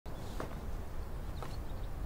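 Steady low outdoor ambience rumble with a few faint, high chirps, and two soft rustles, about half a second and a second and a half in.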